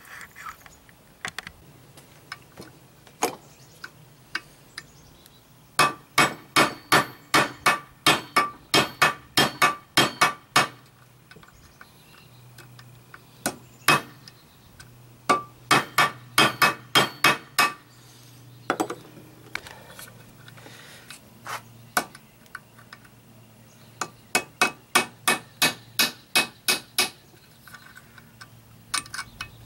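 Hammer striking a rusty punch set in the slot of a seized screw on an old Evinrude 9.9 outboard's lower unit housing, to shock it loose. Sharp, ringing metal-on-metal strikes come in three quick runs of about three a second, with a few single strikes between.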